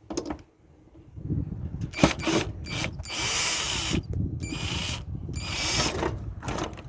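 Screwdriver backing screws out of the stove's control panel: clicks and rattles, then three short bursts of about a second each.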